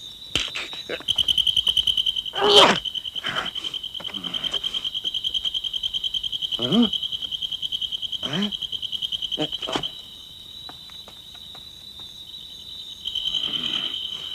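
Cricket-like chirping in a rapid, even, high-pitched trill that stops about ten seconds in and starts again near the end. A few short falling swoops and light clicks sound over it.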